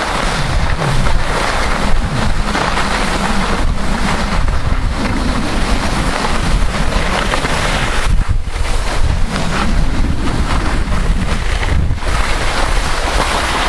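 Wind buffeting the camcorder microphone while skiing downhill, a loud uneven rushing with low rumble, mixed with the hiss of skis sliding on packed snow.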